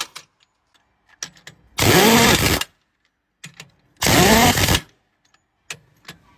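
A power tool run in short bursts of under a second, twice, each spinning up with a rising pitch over a loud hiss, with small clicks between the bursts.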